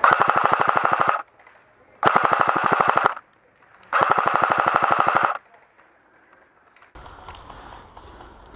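Airsoft electric rifle firing three full-auto bursts of about a second each, a rapid even rattle of shots with short pauses between, followed by faint rustling handling noise.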